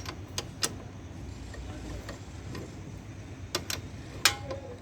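A few sharp metallic clicks and clinks of a spanner working the motorcycle's 22 mm rear axle nut as it is loosened; near the end one clink rings briefly.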